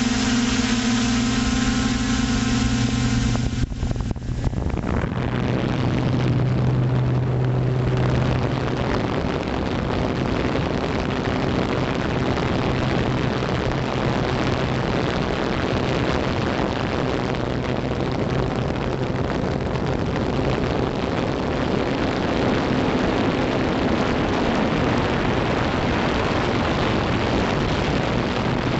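Motors and propellers of an FPV drone, recorded through its onboard camera: a steady pitched hum. About four seconds in the hum drops away and a rough rushing of air takes over, with a fainter hum beneath it.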